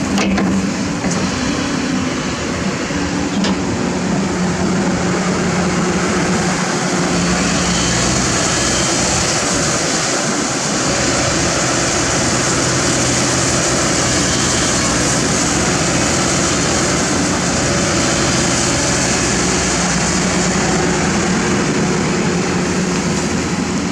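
Heavy diesel earthmoving machinery running steadily, its engine note rising and easing slightly under hydraulic load, with a couple of brief knocks near the start.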